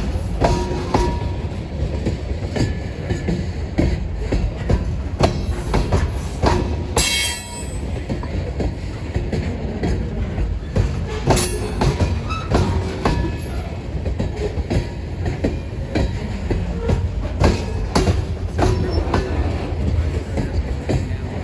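Freight cars of a CN grain train rolling past, a steady rumble with repeated wheel clicks over rail joints. A brief high wheel squeal comes about seven seconds in.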